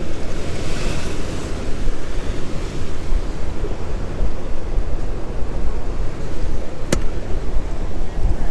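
Strong wind buffeting the microphone in a dense, steady low rumble, over the hiss of surf breaking. A single sharp click about seven seconds in.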